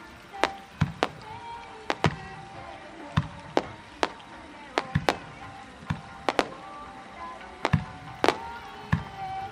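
Aerial fireworks shells bursting in a rapid, irregular series of sharp bangs, about fifteen in all, some in quick pairs. Music plays faintly underneath.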